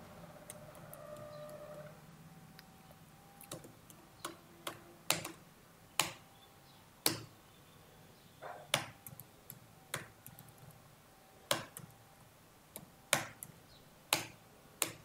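Computer keyboard keys pressed one at a time: about a dozen sharp, separate clicks at irregular spacing of roughly a second, over a faint hum at the start.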